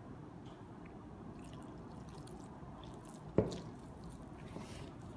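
A hand squeezing and kneading damp gram flour and rice flour into dough in a plastic bowl: faint soft squishing and crumbling, with one sharp knock about three and a half seconds in.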